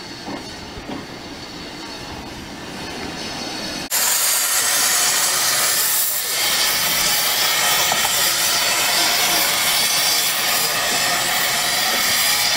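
Narrow-gauge steam locomotive Welsh Pony moving at low speed, heard at first only as a quieter low rumble. About four seconds in, a loud, steady hiss of steam venting from the engine close by starts abruptly and carries on.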